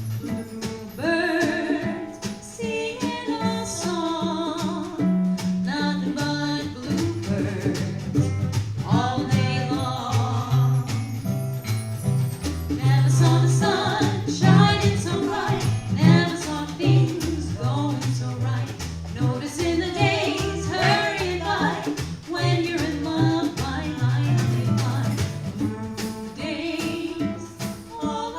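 Small live jazz band playing a swing tune: a melodic lead line over guitar chords and hand percussion, with no sung words.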